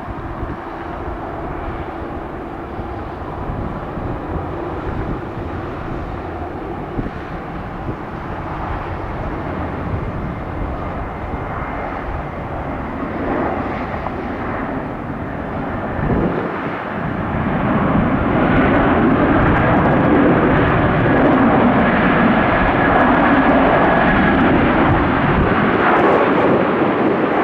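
Jet engines of an Airbus A330-200 airliner arriving to land, a steady noise that grows clearly louder about two-thirds of the way in and holds there.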